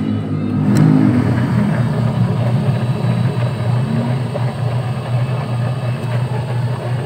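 Newly fitted washing-machine motor of a Fujidenzo washer running under power and turning the tub pulley by its belt: a loud steady hum that drops away near the end. The motor is turning properly, so the motor replacement works.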